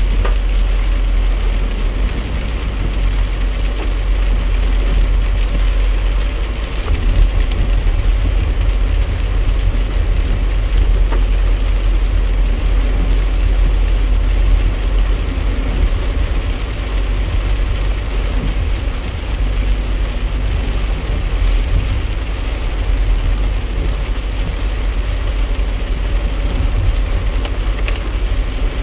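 Steady truck-cab driving noise in rain: a low engine and road rumble with the hiss of tyres on wet pavement and rain on the windshield. The low rumble grows a little heavier about seven seconds in.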